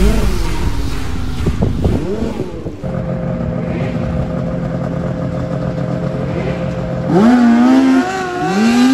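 Snowmobile engines: a falling pitch at the start, then a steady running tone, then a sled's engine revving sharply as it launches down the grass drag strip about seven seconds in, climbing again just before the end.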